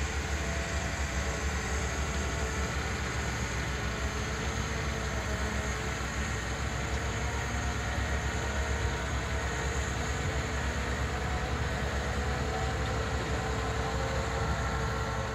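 John Deere forestry harvester's diesel engine running steadily as the machine drives along on its tracked bogies: an even, low rumble with a steady hum.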